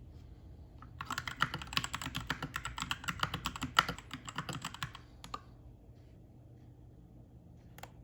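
Typing on a Keychron K2 mechanical keyboard with Gateron Red linear switches: a quick run of keystrokes for about four seconds, then a couple of lone key presses near the end.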